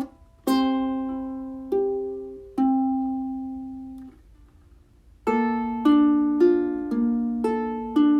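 Solo plucked-string instrumental music: a slow melody of single notes that ring and die away, a short pause about four seconds in, then a quicker run of notes.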